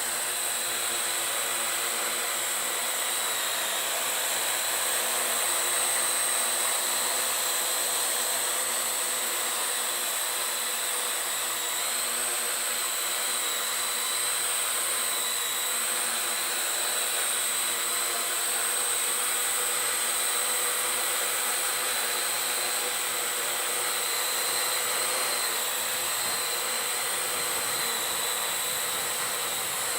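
Parrot AR.Drone 2.0 quadcopter's four brushless motors and propellers running steadily: a constant high whine over a rushing hiss.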